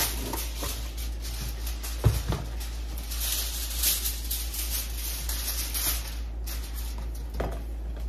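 Kitchen-counter handling noises: a sharp knock about two seconds in, then crinkling rustles of aluminium foil being pulled from its box and spread on the counter.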